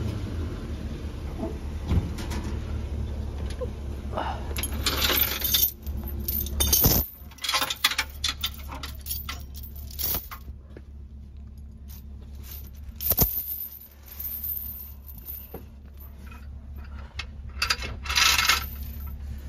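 Metal chains and hooks clinking and rattling, with a few sharp knocks, as a car is secured to a tow truck's wheel-lift. The tow truck's engine runs low underneath.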